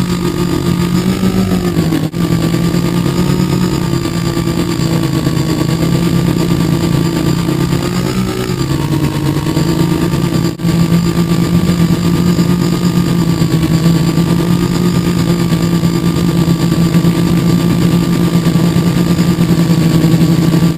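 Quadcopter's electric motors and propellers humming steadily, loud and close, as heard from a camera on its frame. The pitch rises and drops back briefly twice.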